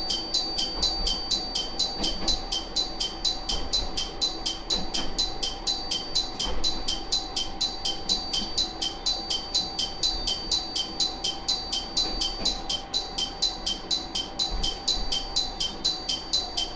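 A bell-like electronic warning alarm dinging rapidly and evenly, about three to four strokes a second, over a faint low hum.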